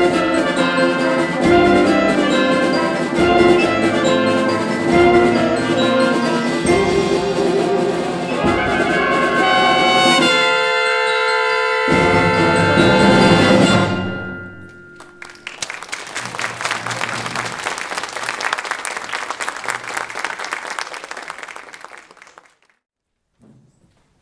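School concert band with brass and percussion playing to the end of a piece, finishing on a long held chord about halfway through. Audience applause follows and dies away near the end.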